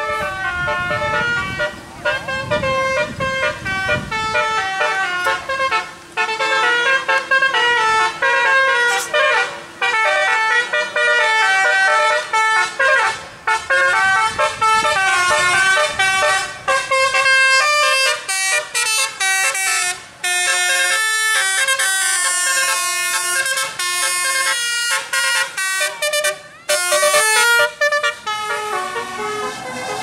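Tour bus's Basuri telolet horn playing a fast melody of stepped tones, note after note with short breaks between phrases. A vehicle engine rumbles low under it in the first few seconds.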